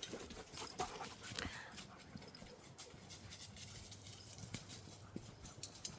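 Faint footsteps and rustling on a trail during a dog walk, with scattered light ticks and no steady sound.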